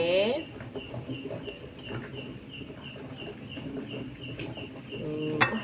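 Cricket chirping in a steady, even rhythm, about four chirps a second.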